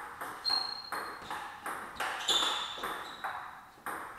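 Table tennis rally: the ball clicking off the bats and the table in quick alternation, about two hits a second, each with a short ringing ping.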